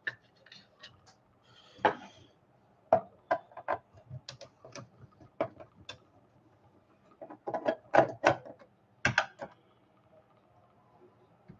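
Scattered clicks and light knocks of a screwdriver and small screws against the plastic housing and mechanism of an Epson TM-T88III receipt printer being taken apart. The clicks come in small clusters with short pauses between them.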